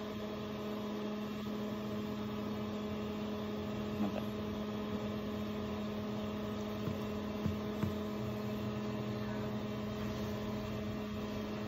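Steady electrical hum of a running Prismaflex CRRT machine, one low tone with several evenly spaced overtones, with a few faint clicks.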